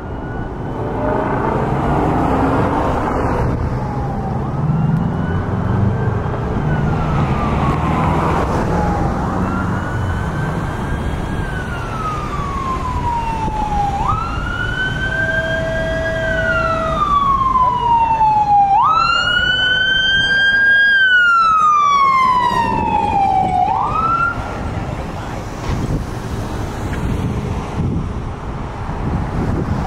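Siren of a 2018 Pierce Velocity fire engine responding to a call, wailing in long sweeps that rise quickly and fall slowly, every four seconds or so, over passing road traffic. It grows louder as the engine approaches and passes, is loudest about two-thirds of the way through, then starts to fade as it moves away.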